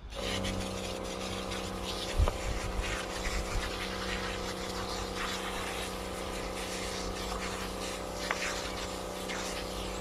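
Portable battery-powered pressure washer (Mobi V-17) switching on and running with a steady electric pump hum, its water jet hissing as it sprays. A short knock about two seconds in.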